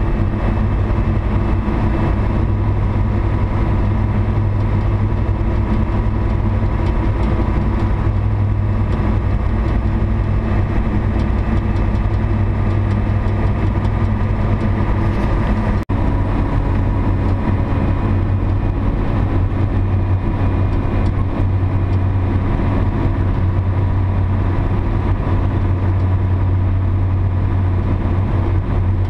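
Scania SBA 111 (Tgb 30) truck's six-cylinder Scania D11 diesel engine droning steadily while cruising, heard inside the cab. There is a brief dropout about halfway through, after which the drone's pitch shifts slightly.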